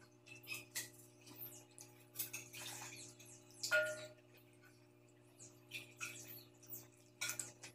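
Close eating sounds by hand: scattered chewing, lip smacks and small wet squelches as fingers scoop cold fermented rice gruel (pazhaya kanji) from a clay pot and pick at fried fish. A faint steady hum runs underneath.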